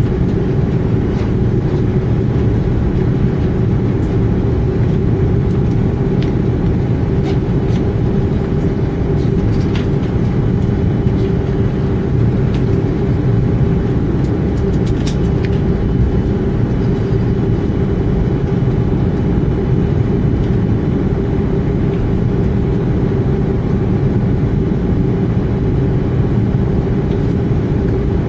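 Airbus A320 cabin noise during taxi: the jet engines' steady hum over a low rumble, heard from inside the cabin, with a few faint ticks.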